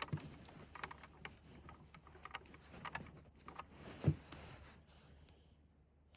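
Soft rustling and scattered small taps of a vinyl reborn doll being handled and painted up close, with one louder thump about four seconds in.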